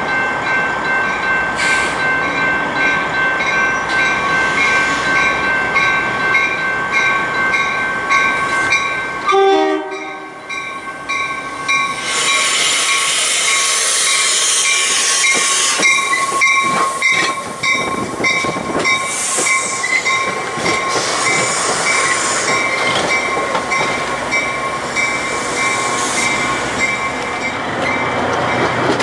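A train running past with its horn sounding and its wheels clattering over the rail joints. Steady high tones run through most of it, with a rhythmic ticking about twice a second.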